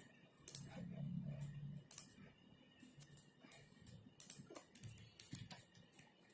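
Faint typing on a computer keyboard: irregular key clicks at an uneven pace, with a short low hum about a second in.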